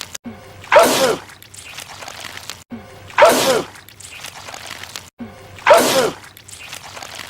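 A man's loud sneeze, the same clip repeated three times about two and a half seconds apart. Each is a falling voiced 'ah' into a sharp burst, and each repeat starts after an abrupt cut.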